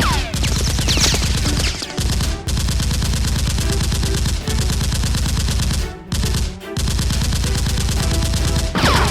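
Rapid automatic gunfire sound effects in long bursts with a few short breaks. Falling whistles, like ricochets, sound near the start and the end.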